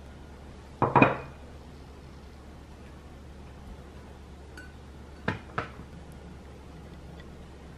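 Ceramic plate and frying pan knocking and clinking as they are set out on a table: a quick cluster of knocks about a second in, then two lighter clicks a little past five seconds.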